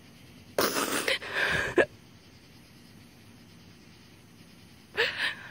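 A person's heavy breath out, lasting about a second and starting about half a second in, then a short breath near the end.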